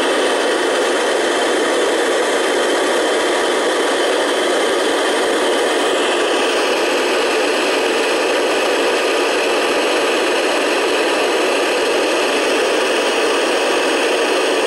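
Steady FM receiver hiss from an amateur radio transceiver tuned to the ISS downlink on 145.800 MHz with no signal coming through: the station is not transmitting and the squelch is open.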